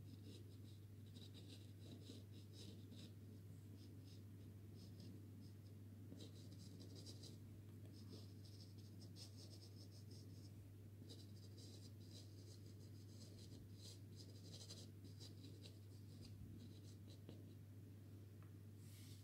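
Soft pastel stick scratching on pastel card in runs of quick short strokes with brief pauses, faint, over a steady low hum.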